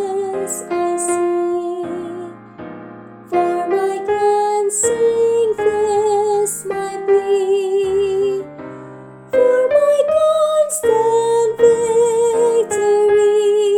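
Soprano voice singing a hymn part with vibrato over piano accompaniment, in phrases with short breaks between them.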